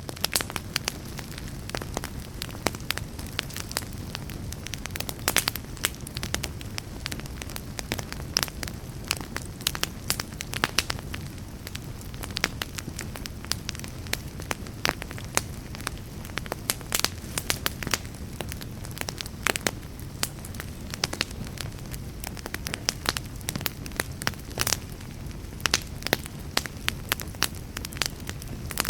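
Wood fire burning in a fireplace: a steady low rush of flame under frequent, irregular sharp crackles and pops from the burning logs.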